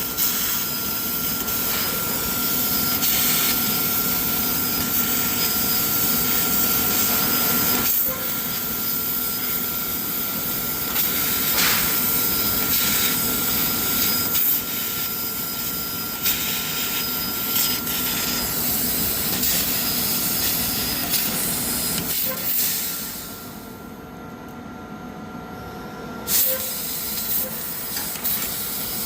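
CNC laser cutter cutting steel plate: a steady hiss with a faint steady whine and a few light clicks. The hiss cuts out for about three seconds near the end, then starts again.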